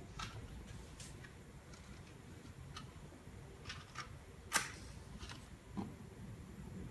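Small clicks and rattles of a matchbox being handled, then one sharp match strike about four and a half seconds in, to light a Bunsen burner.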